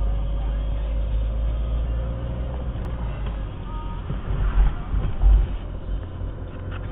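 Car driving, heard from inside the cabin: a steady low rumble of engine and tyres on the road, with a few heavier low thumps about four to five seconds in.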